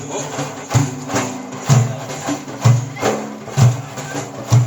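Instrumental break in Iraqi 'ataba folk music: a steady percussion beat, a deep hit about once a second with lighter strokes between, under a sustained melodic accompaniment.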